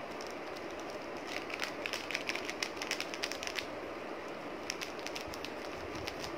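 Clear plastic pouch crinkling as it is folded and squeezed in the hands, in two spells of quick crackles.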